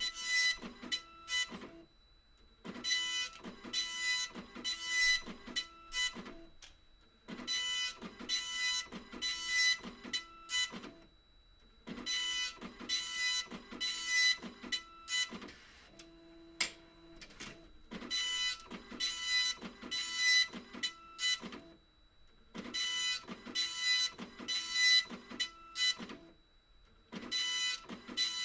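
Epson LQ2550 24-pin dot-matrix printer printing: the print head buzzes across the page in passes of about three to four seconds each, with short pauses between them. Partway through comes a brief, lower-pitched mechanical hum.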